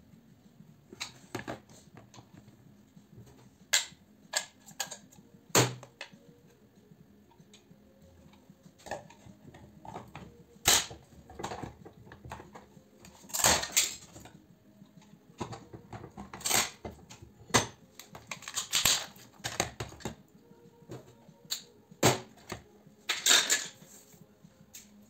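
Metal parts of an electric iron being unscrewed, pried apart and handled on a workbench: irregular sharp clicks and knocks, with a few short clattering scrapes.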